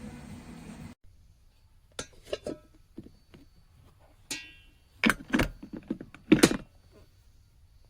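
Plastic and glass parts of an electric food chopper being handled and fitted together: scattered clicks and knocks, one short ringing clink, and a loud double knock near the end.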